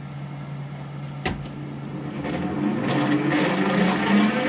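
Warco WM250V lathe switched on with a sharp click about a second in, then its variable-speed drive and chuck spinning up, a whine of several tones rising in pitch and growing louder.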